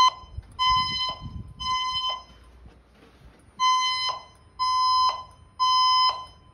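Fire alarm evacuation tone from the building's ceiling voice-evacuation speakers, sounding the temporal-three pattern: loud half-second beeps in threes, about one a second, with a longer pause between each group of three.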